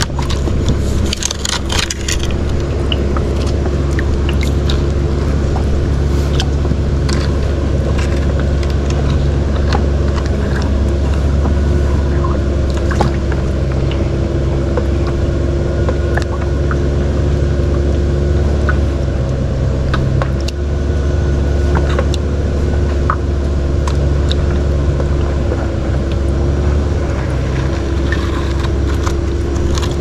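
Small boat's engine running steadily at idle, with a low hum and a steady tone that dips briefly twice. Light knocks and scrapes on the hull come through over it.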